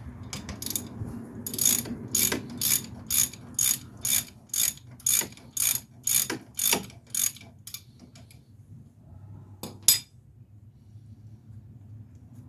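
A socket ratchet wrench being worked back and forth, its pawl clicking on each back-stroke at about two strokes a second for over a dozen strokes, then two last clicks near the end.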